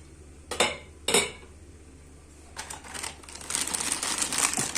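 Two sharp kitchen knocks about half a second apart, then, from about two and a half seconds in, a plastic package crinkling steadily as it is handled: the bag of frozen pelmeni being opened.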